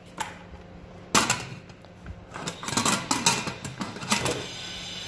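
Metal cooking pots and lids being handled, clinking and knocking against each other in a string of sharp taps, busiest from about two and a half seconds in.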